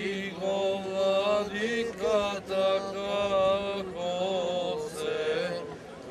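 Orthodox priests chanting a slow Byzantine-style liturgical hymn: a melody with long held notes sung over a steady drone.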